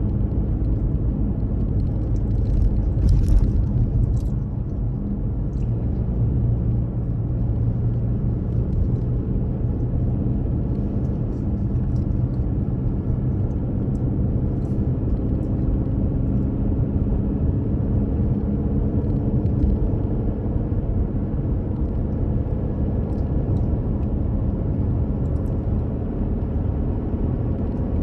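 A car driving along the road: the steady rumble of engine and tyres, with a slight swell about three seconds in and a few faint ticks.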